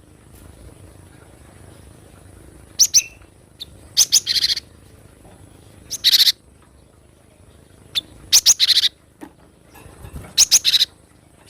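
Cinereous tit (gelatik batu) calling: quick bursts of three or four sharp, high notes, repeated every couple of seconds.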